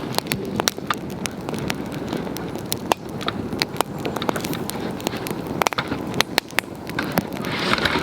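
Wood campfire crackling, with frequent irregular sharp pops over a steady low rush of burning, and a brief hiss near the end.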